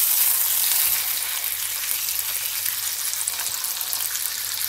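Curry-marinated chicken breast fillets sizzling in olive oil in a stainless steel frying pan: a steady crackling hiss, slightly louder in the first second, that cuts off suddenly at the very end.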